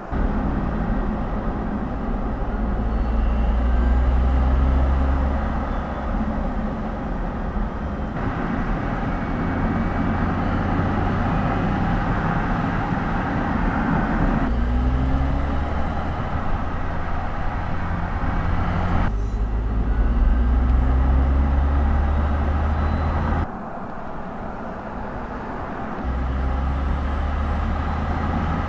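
Mercedes EQS SUV, an electric car, driving on the open road: tyre and wind noise with no engine sound. The sound changes abruptly several times as the shots change, and a few short rising tones come through now and then.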